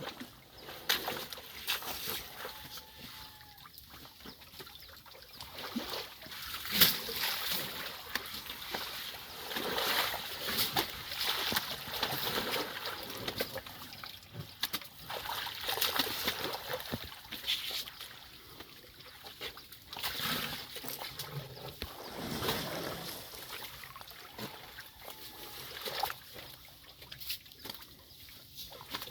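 A young elephant splashing and sloshing in wet mud and water: irregular wet splashes, the sharpest about seven seconds in.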